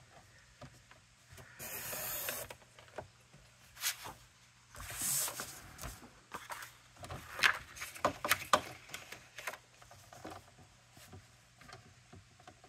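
Paper being cut on a paper trimmer: two short swishes of the blade through the paper, about three seconds apart, then a cluster of light clicks and taps as the pieces are handled.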